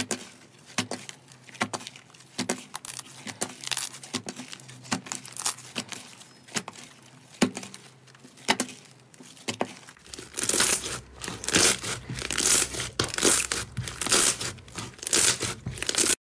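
Blue fluffy bubble slime being stretched and squeezed by hand, giving sticky pops and crackles as air pockets burst and the slime tears. From about ten seconds in the crackling gets louder and denser as a lump of slime is pressed down.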